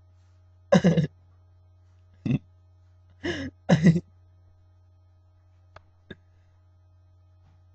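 A person's voice in four short non-word bursts in the first four seconds, like throat clearing or stifled laughter, then two faint clicks about six seconds in; a low steady hum runs underneath.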